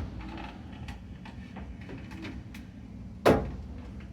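Light clicks and handling noise of the washer's control board and its plastic housing being fitted back in place, with one sharp knock a little over three seconds in.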